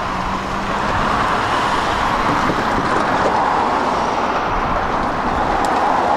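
Union Pacific freight train's diesel locomotives approaching under power, a steady rumble that grows gradually louder.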